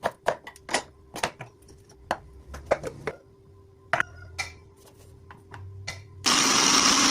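Cooking sounds: a quick run of sharp knocks and clicks from kitchen utensils, then, about six seconds in, a loud steady rushing noise that starts suddenly.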